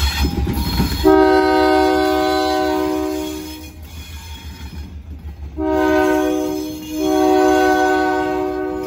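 Air horn of a Pan Am GE C40-8 diesel locomotive sounding a several-note chord in three blasts: a long one about a second in, a shorter one near the middle, and another starting about seven seconds in that is still going at the end, over the low rumble of the passing locomotives' engines.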